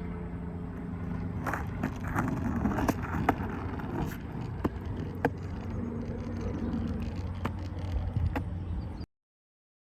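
Steady low rumble and hum of background noise, like road traffic, with scattered short clicks and knocks; it cuts off abruptly into silence near the end.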